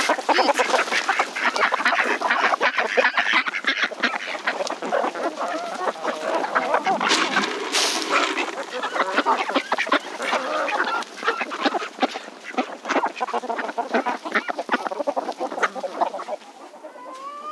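A flock of domestic ducks quacking busily and without a break, with a mixed flock of chickens among them, excited at feeding time as grain is scattered.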